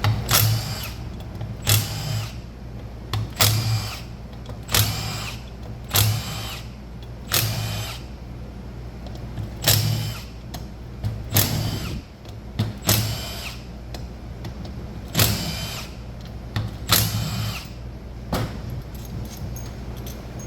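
A cordless power driver run in about a dozen short bursts, each well under a second and a second or two apart, spinning out bolts on the engine cases of a Husqvarna TE150i ahead of splitting them.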